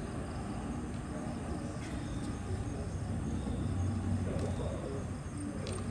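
Night-time ambience: a steady low hum with faint distant voices, a few light clicks, and high insect chirps repeating evenly near the end.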